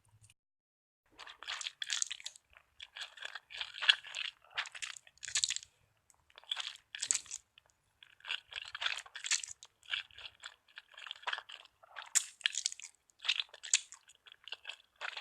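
A person chewing a mouthful of ramen noodles, with wet mouth sounds coming in short, irregular clusters from about a second in.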